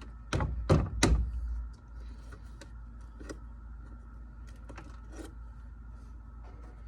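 A plastic 5-quart motor-oil jug being handled and opened: a few sharp clicks and knocks in the first second, then faint scattered taps.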